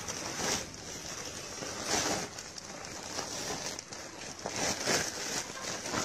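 Woven plastic sack rustling and crinkling as it is handled and pulled over a large snake, with louder rustles about half a second, two seconds and five seconds in.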